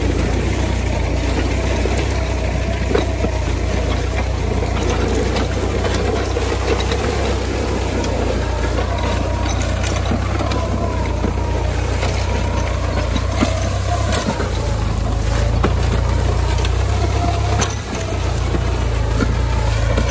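Diesel farm tractor engine, a 5,500 cc 77-horsepower unit, running steadily under load as it pulls a disc harrow through sugarcane stubble. Scattered knocks and crunching come from the discs cutting soil and stalks.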